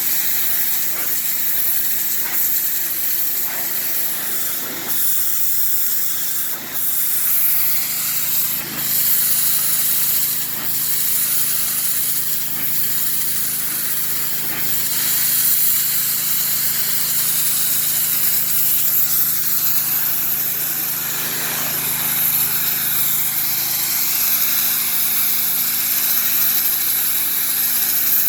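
Pressure washer running while spraying water: a steady high hiss of spray over the steady hum of its motor.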